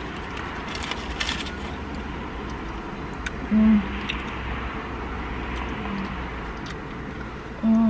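Low steady rumble inside a parked car's cabin, with a few light clicks and rustles. Two short hummed "mm" sounds stand out, one about halfway through and one near the end.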